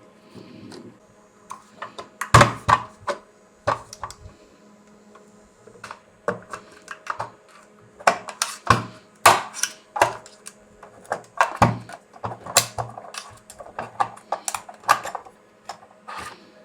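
Irregular clicks, taps and knocks of hand tools and plastic and metal parts being handled while the vacuum cleaner's suction turbine is taken off the motor.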